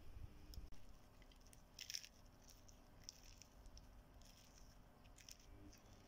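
Faint crackling of a crisp dosa being torn apart by hand: a few short, scattered crunches, the loudest about two seconds in.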